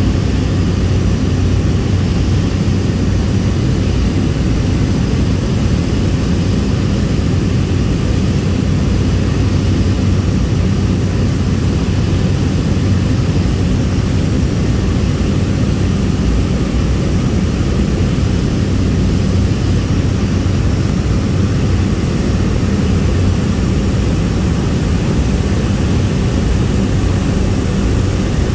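Cessna 208B Grand Caravan's single PT6A turboprop engine and propeller droning steadily, heard inside the passenger cabin, with a constant low hum underneath.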